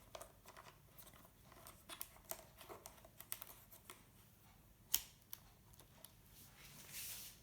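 Faint handling noises of a tripod and a plastic LED work light being fitted together: a run of small clicks and taps, one sharper click about five seconds in, and a brief scraping rub near the end.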